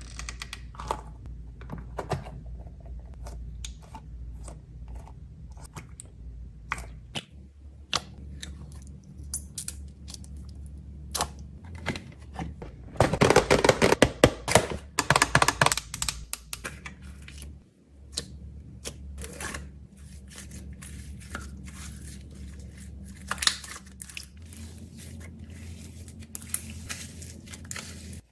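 Hands packing snacks and small items: scattered clicks and taps of plastic and packaging, with a few seconds of dense crinkling and tearing in the middle, over a faint steady low hum.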